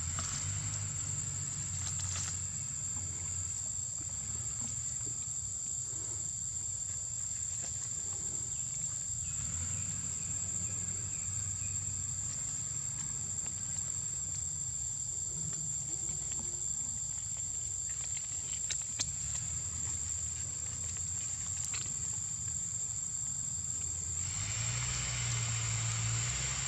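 Steady high-pitched insect drone from the surrounding forest, over a low steady rumble, with a few faint clicks; the insect hiss grows louder near the end.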